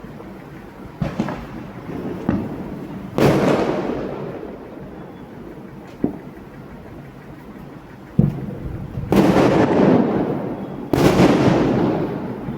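Diwali fireworks and firecrackers going off: a string of sudden bangs, the loudest about three, nine and eleven seconds in, each trailing off in a long rolling echo.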